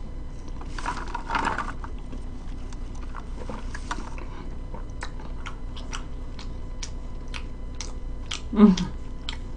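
Close-up chewing and mouth clicks of a person eating, with two short rustles in the first half. A brief hum from the eater comes near the end.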